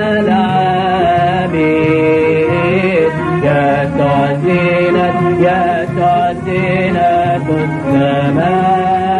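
A man chanting a Coptic hymn, drawing out long held notes that slide between pitches.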